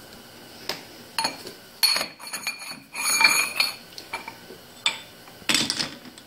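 Thick-walled stainless steel pipe clinking and clanking against the steel jaws of a four-jaw lathe chuck as it is set in by hand. It makes a series of sharp metallic knocks, with a brief ring about three seconds in.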